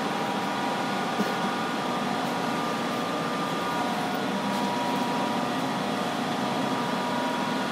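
CK6031B heavy-duty face lathe running: a steady mechanical hum with a few constant whining tones over it.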